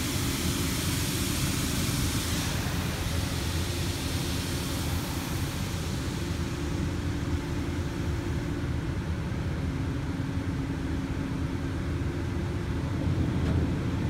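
Automatic car wash equipment heard from inside the vehicle's cabin: a steady rush of water spray over the hum of the wash machinery's motors. The hissing spray fades about six seconds in, leaving the low rumble and hum.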